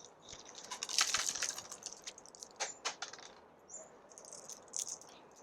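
Crackly rustling of an echeveria pup being handled, its leaves rubbing and crackling. It comes in a dense patch about a second in and again near the end, with a few sharp clicks in between.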